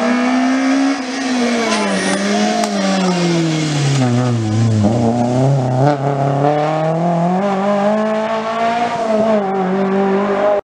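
Rally car, a Fiat Seicento, running hard through a stage corner. Its engine note falls over the first few seconds as it slows for the bend, then rises again as it accelerates away.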